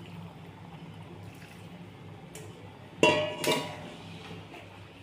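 Water poured from a steel bowl into a wok of chicken curry, over a steady low hum. About three seconds in come two loud metal clanks with a short ring, as metal knocks against the wok.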